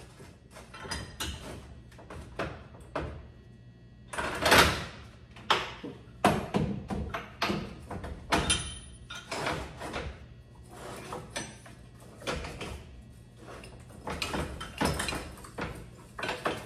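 Irregular metallic clanks, knocks and scrapes of hand tools and parts on a combine corn head's row units as it is taken apart, with a louder clank about four and a half seconds in.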